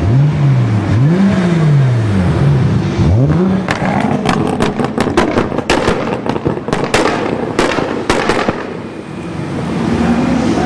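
A sports car's engine revved up and down three times, then a rapid run of loud exhaust pops and bangs lasting about five seconds, with engines running on as the cars roll past.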